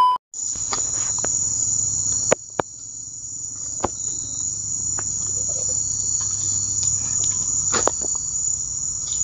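A steady, high-pitched chorus of insects, over a low rumble and a few light knocks. At the very start, a loud electronic test-pattern beep cuts off.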